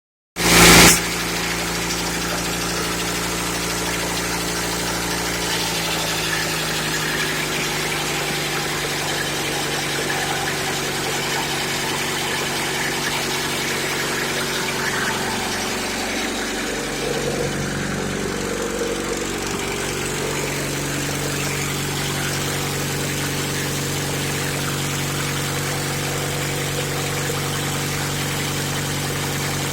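1941 Caterpillar D2's gasoline pony motor running steadily while it cranks the crawler's diesel, which will not start. It comes in abruptly with a loud burst about half a second in, and its pitch wavers briefly about halfway through.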